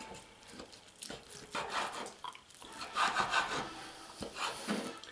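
Fork and knife pulling apart a smoked pork roast on a wooden cutting board: irregular scraping and rubbing of the blade against the meat and board, in a few louder passages.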